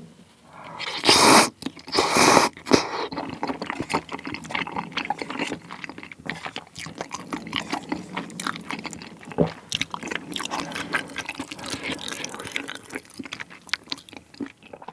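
Close-miked chewing of spicy tteokbokki (Korean rice cakes in sauce): a dense run of wet, sticky mouth clicks and smacks, with two louder noisy rushes about one and two seconds in.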